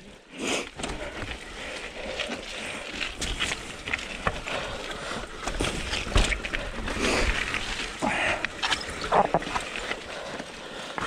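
Mountain bike descending rough singletrack: tyres rolling over dirt and roots, with frequent rattling knocks from the bike over bumps.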